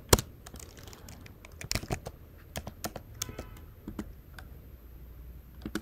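Typing on a computer keyboard: irregular, fairly quiet key clicks, with a louder keystroke just after the start.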